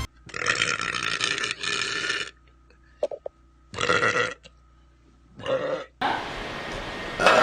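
A person burping: a long belch of about two seconds with a short break in it, then a shorter burp and a brief third one after pauses. Near the end a steady hiss comes in under more belching.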